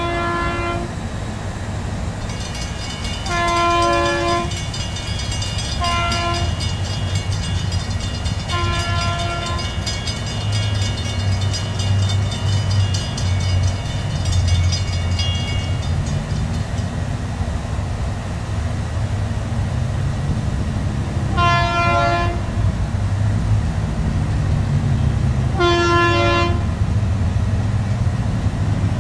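Diesel locomotive of a freight train, an EMD GP40-2, sounding its air horn in a series of separate blasts, some long and some short, over the steady low rumble of its engine.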